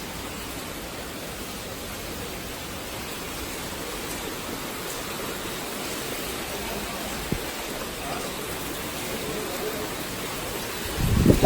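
Heavy rain falling as a steady, even hiss, with a single sharp click about seven seconds in and a louder low rumble rising near the end.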